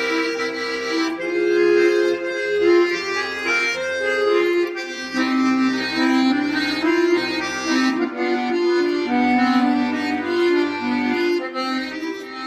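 Accordion playing an instrumental interlude of a slow song melody, with chords under the tune.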